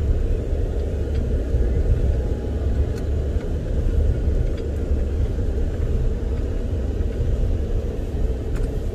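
Car or truck driving across a rough grass field, heard from inside the cab: a steady low rumble of engine and tyres.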